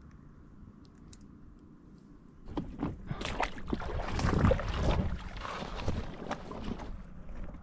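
Faint wind and water at first. From about two and a half seconds in, footsteps crunch over loose stones and grass, with rustling and knocks from the handheld camera.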